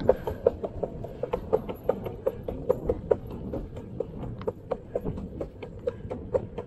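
Skateboard wheels rolling along a concrete sidewalk and clacking over the joints in a steady rhythm, about four to five clicks a second, often in quick pairs, over a low rolling rumble.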